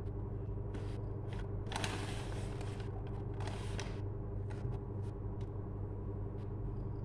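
Steady low background hum, with a few short rustling hisses and some faint ticks.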